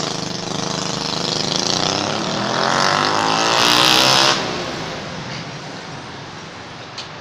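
A motor vehicle driving past in the street. Its engine and road noise build to a peak about four seconds in and then fade away.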